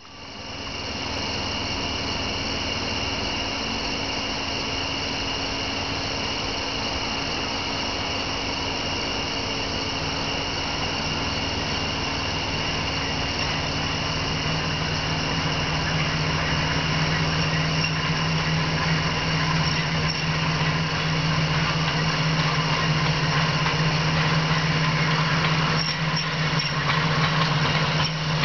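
Electric trolley car running along the track as it approaches, a steady hum with a high squeal, growing gradually louder as it nears; the low hum strengthens about halfway through.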